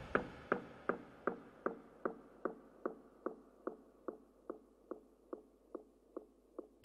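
Sparse intro of electronic soundtrack music: short, evenly spaced pitched ticks, between two and three a second, under the fading tail of a loud hit. The full beat with drums comes in right at the end.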